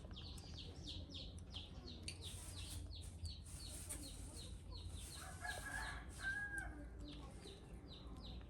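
A steady run of short, high, falling chirps, about three or four a second, with a rooster crowing in the background about halfway through.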